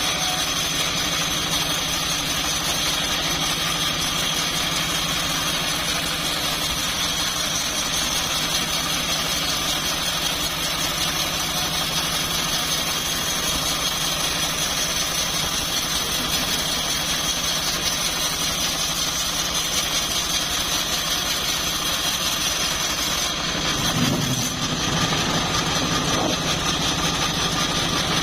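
A home-built, engine-driven bandsaw mill running steadily, with a constant high-pitched whine over the engine. About 24 seconds in, a brief low shift and a small bump in level break the steady run.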